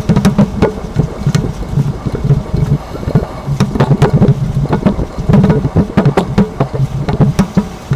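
Inside the cab of a moving 2025 Chevrolet Silverado 1500 Trail Boss pickup: a low road and driveline rumble with many sharp knocks and clunks at irregular intervals. The owner takes this for excessive leaf-spring noise.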